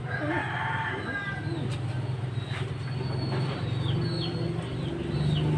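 A steady low engine hum runs throughout and grows louder near the end. Over it a bird gives short chirps that fall in pitch, repeated about once or twice a second in the second half.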